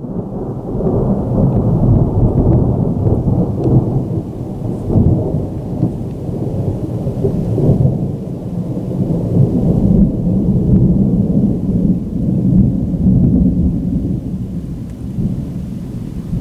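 Long rolling rumble of thunder that swells within the first second, keeps rumbling and pulsing, and eases off slightly near the end.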